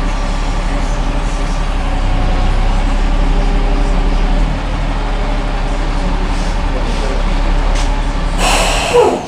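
An engine running steadily. Near the end comes a short burst of hiss with a falling squeal, and then the engine sound drops away.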